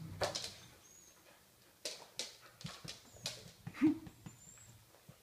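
Dog whining in a series of short, high-pitched cries, with one short, louder, lower yelp about four seconds in.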